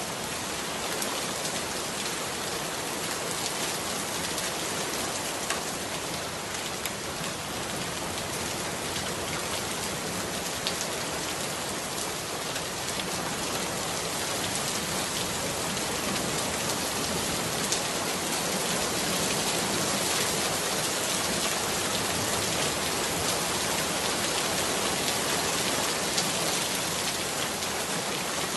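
Steady rain, an even dense hiss with scattered drop ticks, growing slightly louder about halfway through. It is the masking track of a subliminal audio.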